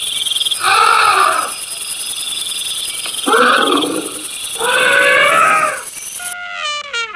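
An animal calling loudly four times, each call lasting about a second, over a steady high chirring of insects. Near the end the sound cuts to a different, clearer call that falls in pitch.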